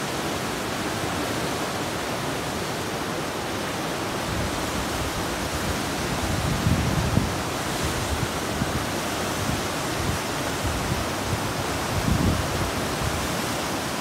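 Whitewater of a river in spate just below a weir: a steady, even rush of churning water, with a few brief low buffets about halfway through and near the end.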